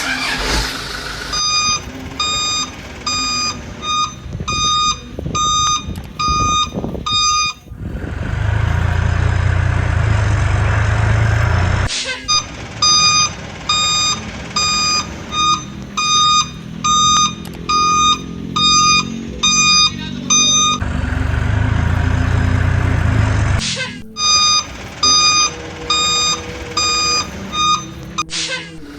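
Toy RC vehicle's electronic reversing beeper, sounding about twice a second in three runs, with a steady low simulated engine hum between the runs.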